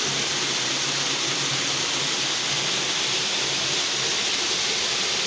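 Indoor ornamental waterfall rushing steadily, falling water splashing into its pool.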